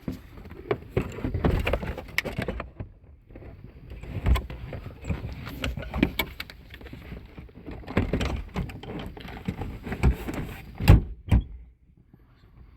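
Irregular clunks, knocks and rustling of parts being handled and moved around inside a car, with two loud sharp knocks near the end.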